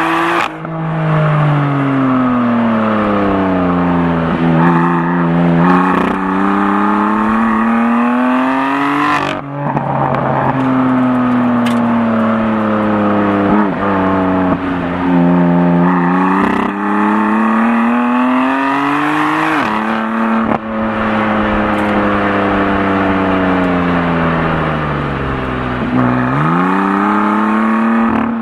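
BMW M4 Competition's twin-turbo straight-six under way, its pitch sinking and climbing several times as the car slows and accelerates. There are short breaks and steps in the pitch, like gear changes, about a third of the way in and again about two-thirds of the way in, and a dip and climb near the end.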